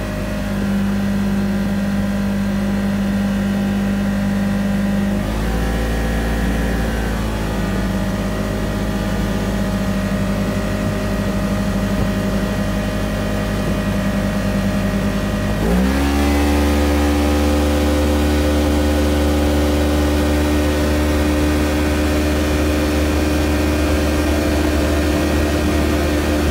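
Polaris General XP 1000's twin-cylinder engine running at a steady pace. Its note changes about five seconds in, then rises quickly about sixteen seconds in and holds there at a higher pitch.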